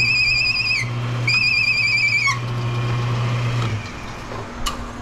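An automatic copper wire stripper's electric motor runs with a steady low hum, then winds down near the end. Over it come two high, warbling whistle-like tones, each about a second long and dropping in pitch as it ends.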